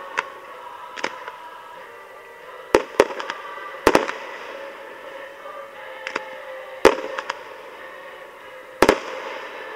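Fireworks display: aerial shells bursting with sharp bangs, about eight of them at uneven gaps, some in quick pairs, the loudest about seven seconds in. A steady hiss runs underneath.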